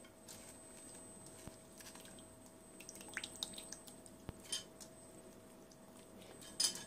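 Faint small splashes and drips of water in a steel bowl as fried gram-flour fritters are moved and lifted out of it, with a few light clicks; the loudest splash comes near the end.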